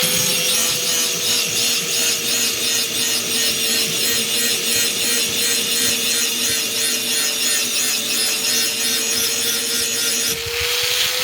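Power grinder sharpening a steel axe blade: a steady motor whine under a continuous hissing grind of metal. The whine dips briefly near the end and picks up again.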